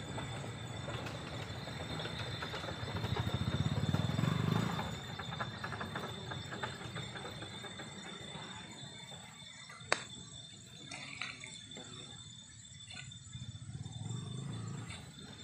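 Low rumble of a distant motor, swelling about three to five seconds in and again near the end, over a steady high whine. One sharp click about ten seconds in.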